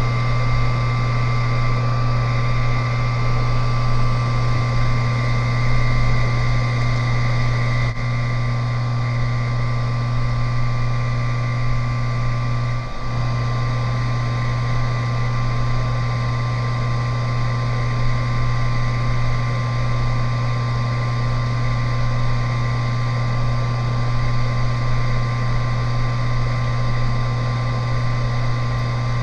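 Electric circulation pump of a homemade biodiesel processor running steadily with a strong hum, pumping waste canola oil through the heater tank to even out its temperature before the reaction.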